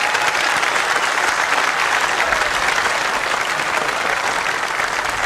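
A large crowd applauding, a dense, steady patter of many hands clapping.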